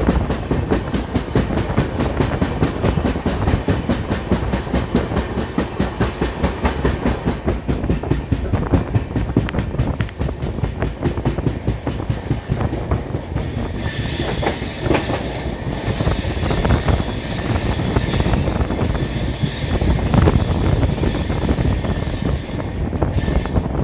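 Passenger train running on the rails, its wheels rumbling and clattering. About halfway through a high-pitched wheel squeal joins in and carries on until shortly before the end.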